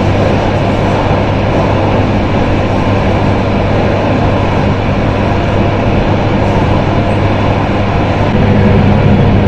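AnsaldoBreda tram running at steady speed, heard from the driver's cab: steady rolling noise of the wheels on the rails with a low hum, getting a little louder near the end.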